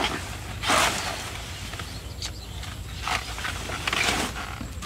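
Short-handled hand hoe chopping into earth and taro roots. It makes about five separate scraping strikes, with soil and roots tearing and crumbling as the clump is dug free, over a low steady rumble.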